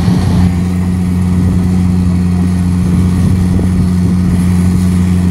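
Plow cat's diesel engine running steadily under load as it plows poly gas pipe into the ground: a constant low drone.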